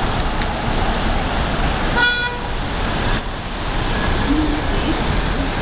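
Road traffic: a Mercedes-Benz Citaro G articulated bus and cars driving past. About two seconds in comes a short vehicle horn toot.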